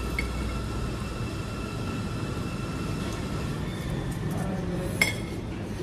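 Steady low rumble of a dining room with a faint steady high tone over it, broken about five seconds in by a single sharp clink of metal cutlery against a plate.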